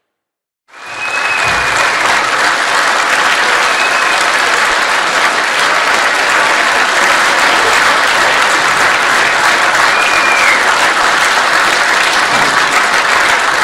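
A large audience applauding with dense, steady clapping that fades in quickly after a brief silence near the start.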